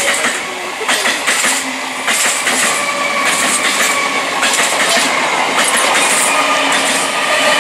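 Electric multiple unit (EMU) local train passing close by: its wheels clack over rail joints in quick pairs, about two strikes a second, over a steady whine.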